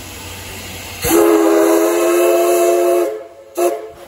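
Steam whistle of the 1941 Hitachi-built C11 tank locomotive C11 207 sounding one long, steady blast of several tones at once for about two seconds, starting about a second in, over a steady hiss. A short sharp burst follows near the end.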